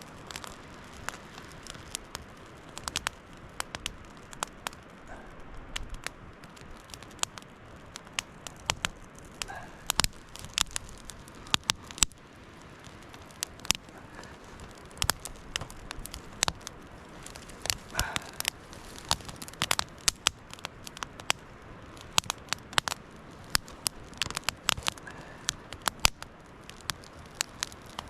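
Small grid-style kindling campfire crackling, with irregular sharp snaps and pops as it struggles to catch.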